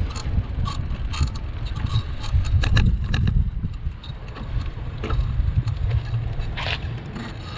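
Wind rumbling on the microphone of a bicycle rider's action camera while riding, with scattered clicks and rattles from the bicycle over brick paving. The rumble is loudest about three seconds in.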